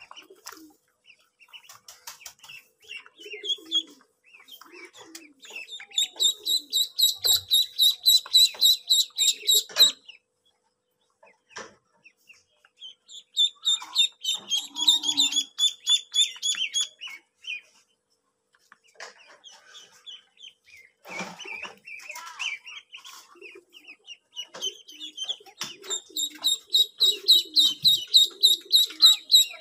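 A group of domestic ducklings peeping, high and rapid at about five peeps a second, in three long runs with short pauses and scattered single peeps between them.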